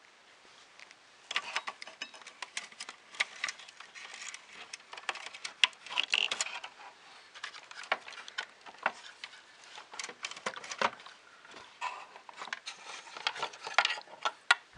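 Irregular clicks, taps and light rustling of small parts being handled during assembly, starting about a second in.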